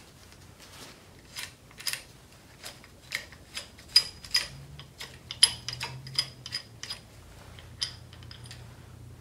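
Small metallic clicks and clinks of a T-handle Allen wrench working the Allen screws on a transfer pump's air motor: irregular sharp ticks with a slight ring, loudest about four and five and a half seconds in.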